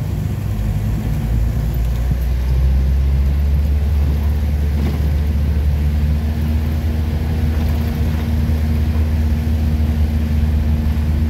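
Vehicle engine running steadily under load as it climbs a steep, winding road, heard inside the cabin with road noise: a constant low hum that gets a little louder about two and a half seconds in.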